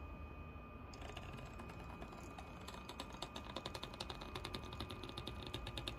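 Two HO model locomotive chassis creeping along the track at a low speed step, their original drivetrains giving fast, irregular clicking from about a second in, growing denser later, over a faint steady high tone. The clicking is the noisier, jerkier running that goes with the older Lenz decoder, against the smoother ESU LokPilot V5 with coreless-motor settings.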